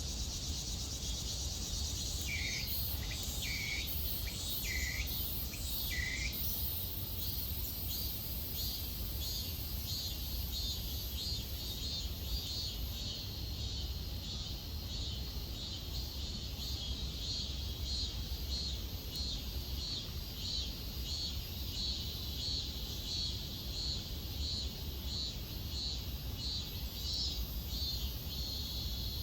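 Cicadas calling in a steady pulsing rhythm, about two pulses a second, over a continuous high insect hiss. Four short bird chirps sound early on, over a low steady rumble.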